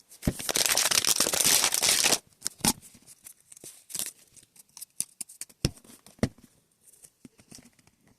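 Toy packaging being torn open for about two seconds, followed by scattered crinkles and clicks as the opened packaging is handled.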